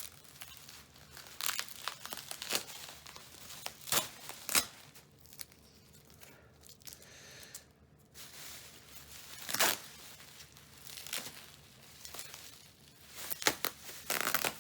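Packing wrap being torn and pulled off by hand, in irregular rips and crinkling rustles, with the loudest tears about four seconds in, near ten seconds and just before the end.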